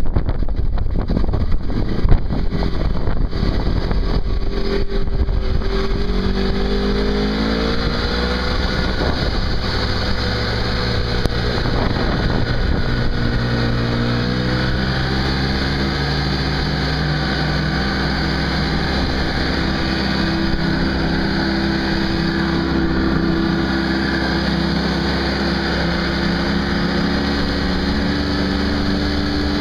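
Snowmobile engine running at close range, rising in pitch as it speeds up about six to eight seconds in, then holding a steady pitch. Wind buffets the microphone over the first few seconds.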